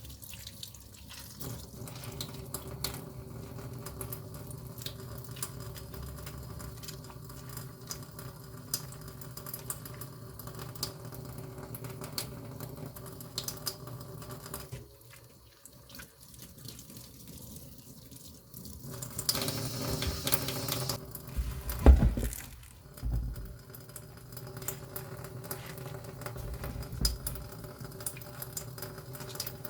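Water running and splashing, with scattered small clicks. It gets louder for a few seconds around twenty seconds in and ends that stretch with a thump.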